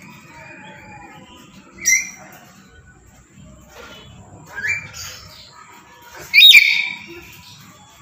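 Black-capped lory giving three loud, short calls, each a quick upward-sweeping screech; the third call, about two-thirds of the way through, is the loudest.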